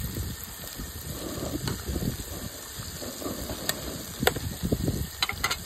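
Small pieces of largemouth bass deep-frying in hot oil: a steady hissing sizzle with sharp crackling pops, several close together near the end. Wind rumbles on the microphone underneath.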